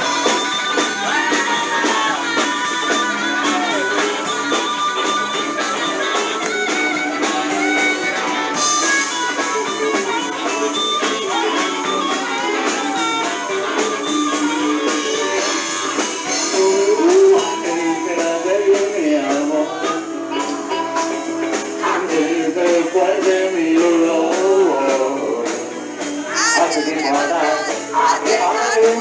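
Blues-rock music: a band with guitar and drums keeping a steady beat, with sung vocals over it.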